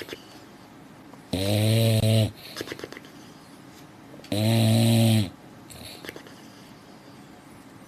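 A sleeping dog snoring: two long, evenly pitched snores about three seconds apart, with quieter breathing between them.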